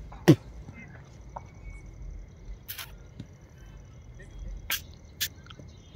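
A football kicked with a sharp thump about a third of a second in, followed by a few fainter, sharper knocks of the ball being struck farther off.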